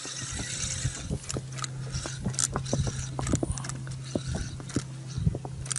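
Spinning reel being cranked during a twitching retrieve of a wobbler lure: a steady low whir with scattered irregular clicks and knocks from the rod and reel.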